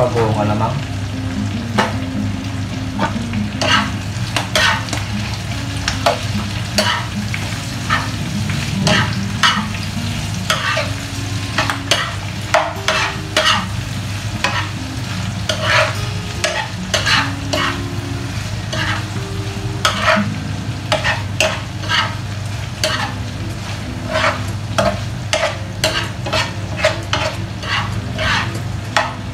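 Pork and tomato frying in a pan with a steady sizzle, while a spatula stirs and scrapes against the pan in frequent short strokes.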